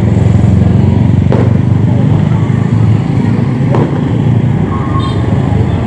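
Motorcycle engines running in slow street traffic close by: a steady, loud low rumble.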